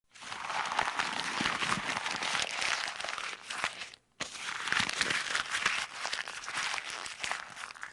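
Paper being crumpled and crinkled by hand: a dense run of crackles in two takes, broken by a short silence about four seconds in.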